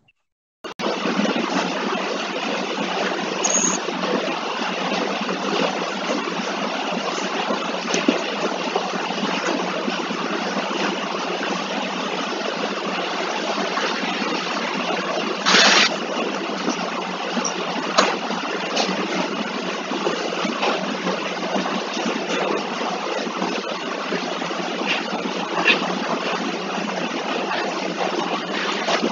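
Steady hiss-like noise over a video-call line, as from an open microphone, cutting in suddenly about a second in, with a few faint clicks scattered through it.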